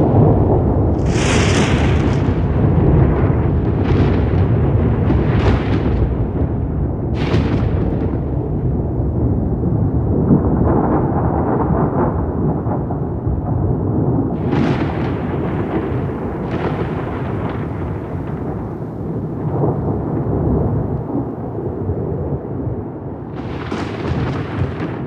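Thunder rolling continuously, a deep rumble with repeated sharp cracks breaking through every few seconds, strongest in the first eight seconds and again near the end.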